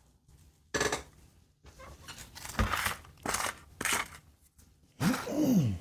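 Hands handling a plastic pot of potting mix and perlite over a plastic tray: short rustles and light clicks, several of them. Near the end comes a louder, brief sound that rises and then falls in pitch.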